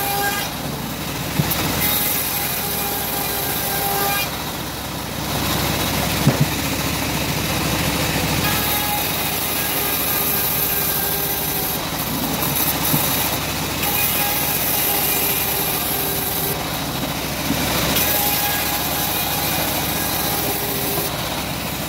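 Home-built bandsaw mill running and ripping a teak slab, a loud steady machine noise with a high cutting hiss that fades and returns several times as the blade goes in and out of the wood.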